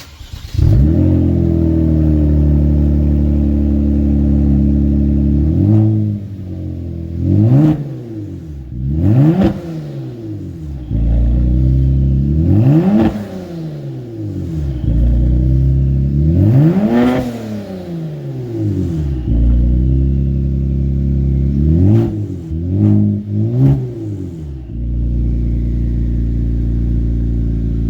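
2018 Kia Stinger engine through a Borla S-Type exhaust with the resonator deleted and a larger X pipe. It starts up about half a second in and settles to idle, then is blipped several times, each rev rising and falling back to idle. The exhaust note is throaty.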